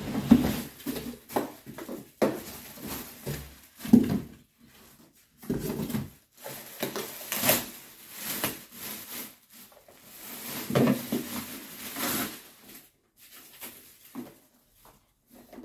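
Clear plastic bag crinkling and rustling as it is pulled off a pressure washer, with irregular scrapes of the cardboard box and a few knocks of the unit's plastic body being set down and handled.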